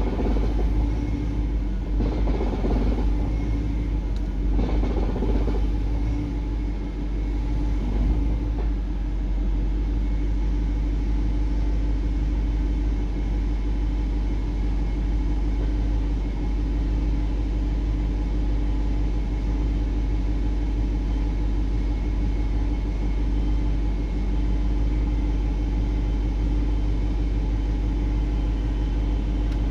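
BMW E60/E63 idling: a steady low rumble with a constant hum, and two brief louder swells in the first few seconds.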